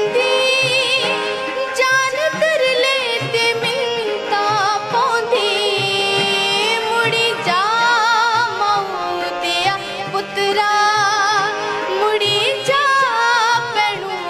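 A woman singing a Dogri folk song with an ornamented, wavering melody, accompanied by a harmonium's sustained tones.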